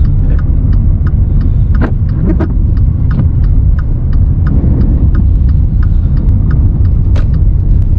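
Car cabin with a steady low rumble of engine and tyres on a snowy road, and the turn-signal indicator ticking evenly about two to three times a second. A few brief louder knocks come through about two seconds in and again near the end.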